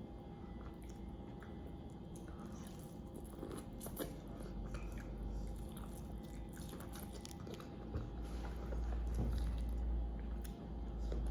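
A person biting and chewing food close to the microphone, with small crunches and clicks; a stronger low rumble comes in over the last few seconds.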